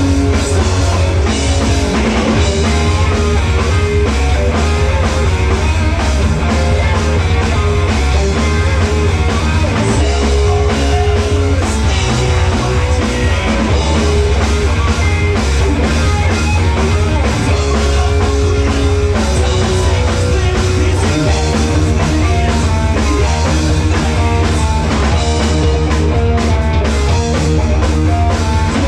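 Live rock band playing loudly: drum kit, electric guitar and bass.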